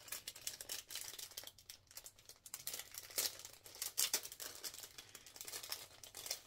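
Clear plastic packaging crinkling and rustling in the hands as it is handled and pulled open, a dense run of sharp crackles, loudest around the middle.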